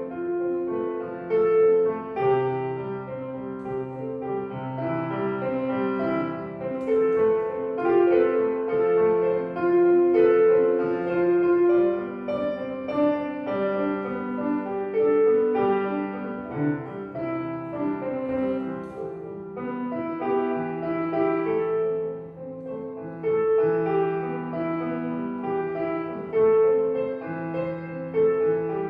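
Street piano being played: a slow melody of held notes over a sustained lower accompaniment.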